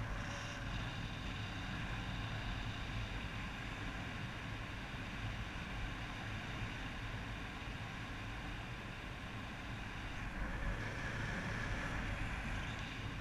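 Steady rush of airflow buffeting a harness-mounted camera's microphone during a paragliding flight, a dense rumbling hiss heaviest in the low end.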